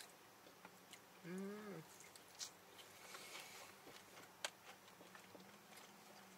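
Quiet chewing and mouth clicks of someone eating fried chicken, with a short hummed "mmm" about a second in.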